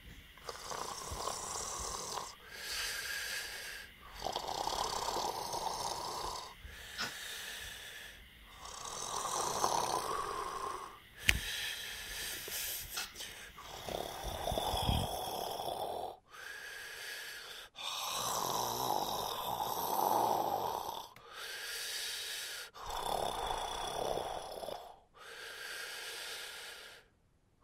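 A person snoring in a steady rhythm, each breath in and out lasting one to two seconds, with one sharp click near the middle.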